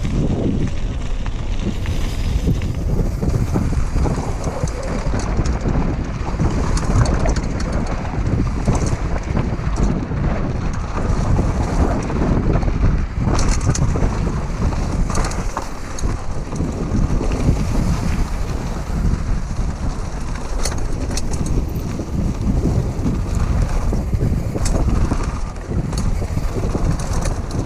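Wind buffeting the microphone of a GoPro Hero 5 on a downhill mountain bike descending a dirt trail, a steady heavy rumble with the crunch of tyres on loose dirt. Short clicks and rattles from the bike come through now and then.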